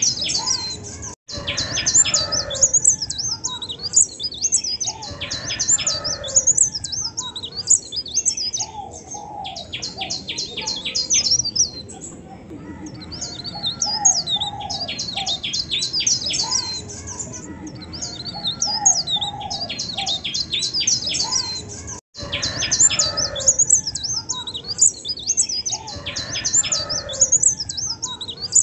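Songbird singing: rapid high trills of quickly repeated notes mixed with whistled, sliding phrases, with lower, softer notes underneath. The sound cuts out briefly twice, about a second in and about two-thirds of the way through.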